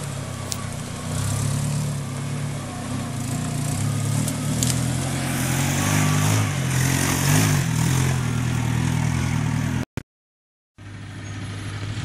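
Suzuki Samurai 4x4's engine labouring in low gear as it crawls over rough off-road ground, its pitch rising and falling with the throttle. The sound breaks off for about a second near the end, then an engine carries on steadily.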